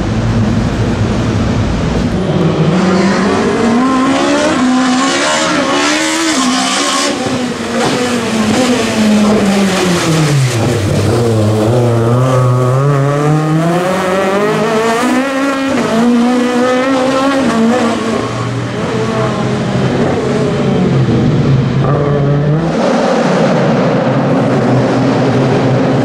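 Race car engines revving hard through a cone slalom, the pitch climbing and dropping again and again with throttle lifts and gear changes, including one deep drop and long climb about ten seconds in. The sound changes abruptly near the end as another car takes over.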